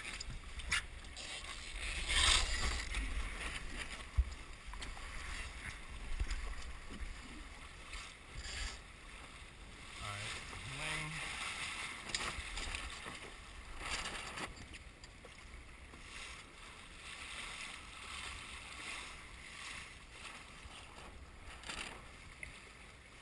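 Water rushing and splashing along the hull of a sailboat under way, with uneven surges and the loudest swell about two seconds in.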